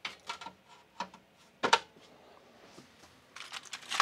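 Hands handling parts of a 3D printer: a few light clicks and knocks, a sharper clack a little before the halfway point, then a quick cluster of taps building to a louder knock near the end.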